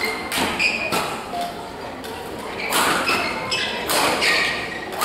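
Badminton rackets striking a shuttlecock a few times during a doubles rally, each hit a sharp crack followed by echo in a large hall.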